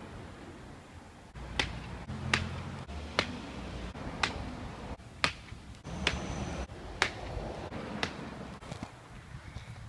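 A series of about eight sharp clicks, roughly one a second.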